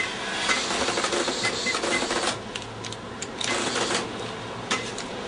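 Shop cash register printing a receipt, a mechanical chatter in two spells: about two seconds near the start and a shorter one around four seconds in.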